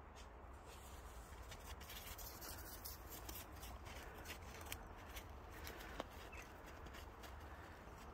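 Faint crunching of footsteps in snow, with scattered small crackles and rustles as a dog roots among snowy twigs.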